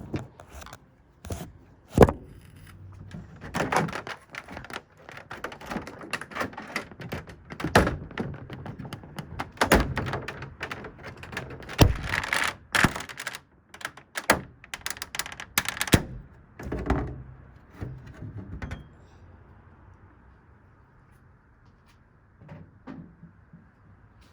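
A TV's back cover being worked loose and pulled off: a long run of irregular clicks, knocks and thunks with scraping handling noise, falling quiet a few seconds before the end.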